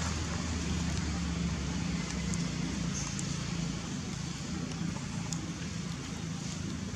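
A low, steady engine hum, like a motor vehicle running, slowly fading, with a few faint clicks over it.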